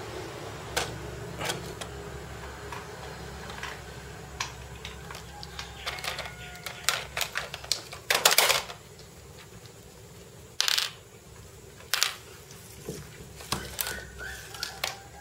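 Hard plastic toys clattering and knocking on a tile floor: scattered clicks throughout, with a few louder knocks partway through.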